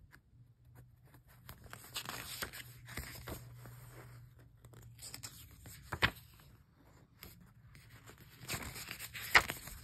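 Pages of a glossy paper booklet being turned and handled: bursts of paper rustling and crinkling, with a sharp click about six seconds in and a louder one near the end.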